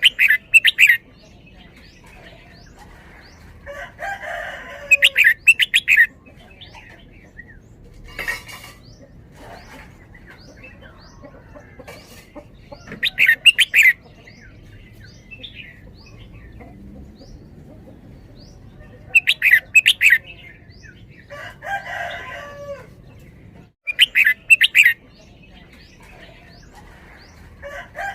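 A red-whiskered bulbul singing loud, short, bubbling song phrases of about a second each, repeated every few seconds. Fainter chirps from other small birds sound in between.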